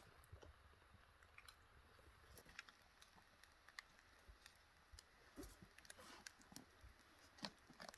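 Near silence, with scattered faint clicks and crackles.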